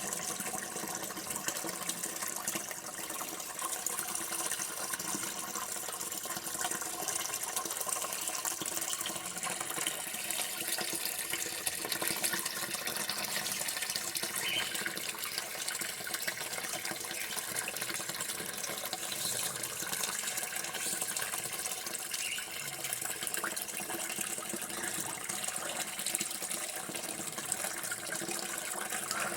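Running water flowing steadily in an even, unbroken rush, like a tap pouring.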